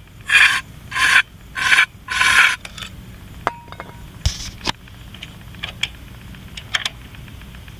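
Aerosol can of carburetor cleaner sprayed in four short hissing bursts into a small generator engine's air intake, priming it for a start attempt, followed by a few light clicks and knocks.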